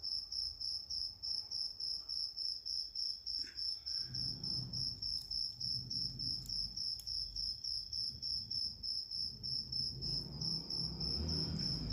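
A cricket chirping steadily: a high, even pulsing trill of about five chirps a second.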